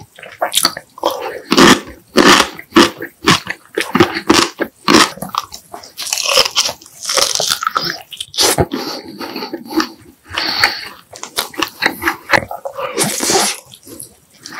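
Close-miked eating sounds: a person biting and chewing food, with a dense, irregular run of wet smacks and crunches.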